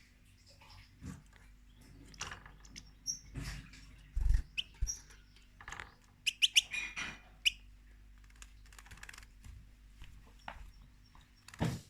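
European goldfinch giving short, scattered chirps, with a quick run of them about six to seven seconds in, among small clicks, rustles and a soft thump.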